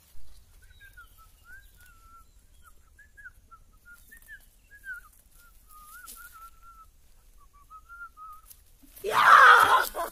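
Faint whistling of a wandering tune, short notes sliding up and down, then a loud cry lasting about a second near the end.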